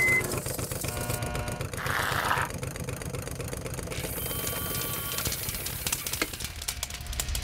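Intro sound effects: a rapid mechanical clicking clatter over a low hum, with a few short electronic tones and a brief burst of hiss about two seconds in.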